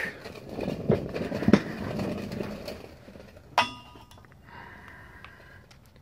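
Rustling and scuffing handling noise with a couple of knocks as someone moves under a truck. About three and a half seconds in comes one sharp metallic clink with a short ring, as a digital level is set against the driveshaft.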